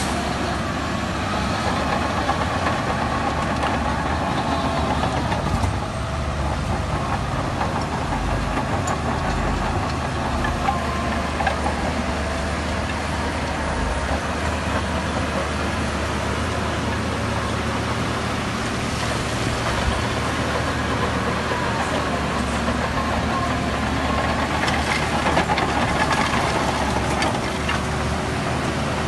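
Diesel engine of heavy earthmoving machinery running steadily.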